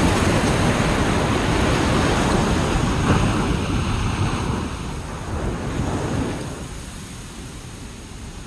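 Ocean waves breaking on a beach, a rushing wash of surf that swells and then fades away over the last few seconds, with wind on the microphone.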